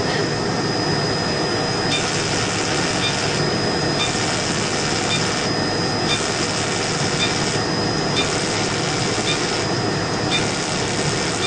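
Steady noise of the machinery running during a fractional CO2 laser skin-resurfacing treatment, with a cold-air skin cooler blowing. A thin high tone and the upper part of the noise switch on and off about every two seconds, with small clicks at each switch.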